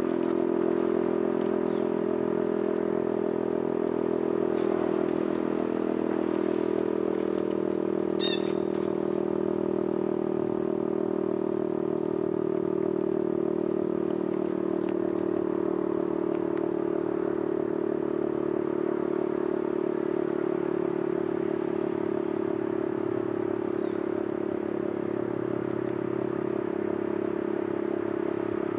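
Federal Signal STH-10 dual-tone rotating electromechanical siren sounding its two-note chord at a steady pitch during a tornado-siren attack-signal test.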